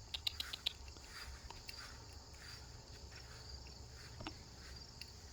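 Faint, steady chirring of insects in a high, even band, with a quick run of small clicks in the first second.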